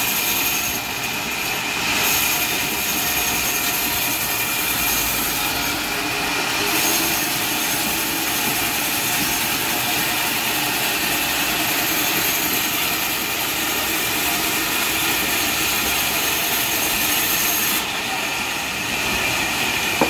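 Large vertical band saw running and ripping through a mahogany log: a steady noise of blade and cut wood with a thin high tone held throughout.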